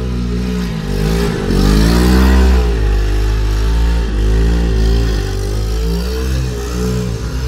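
Small 79cc four-stroke single-cylinder engine of a three-wheeled go-kart, revved up and down again and again as the kart is driven, its pitch rising and falling several times and loudest about two seconds in.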